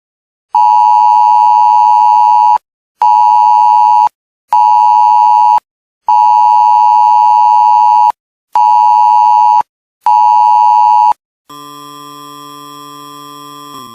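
EAS-style electronic alert tone: six loud, buzzy blasts at one pitch in a long, short, short, long, short, short pattern with brief gaps. Near the end it gives way to a quieter steady electronic chord of several held tones.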